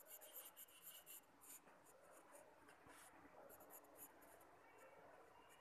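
Faint pencil scratching on paper in quick short strokes: a flurry in the first second and a half and another about three and a half seconds in.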